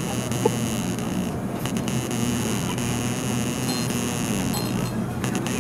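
Steady background noise: a hiss with a constant low hum underneath, and a single short blip about half a second in.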